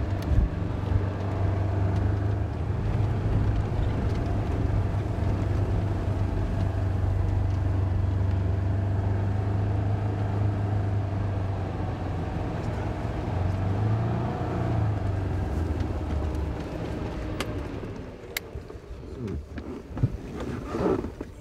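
Off-road utility cart's engine running steadily as it drives along a dirt track, rising slightly about fourteen seconds in, then dropping away about seventeen seconds in, with a few sharp clicks near the end.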